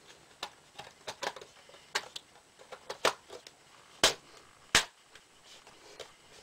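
Irregular sharp plastic clicks and taps as a Dell Inspiron laptop's plastic hinge cover is placed onto the base, the two loudest a little past the middle.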